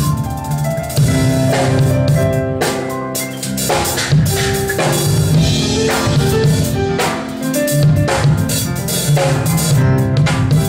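Live rock band playing with no singing: a drum kit beats steadily with cymbal crashes under sustained keyboard chords.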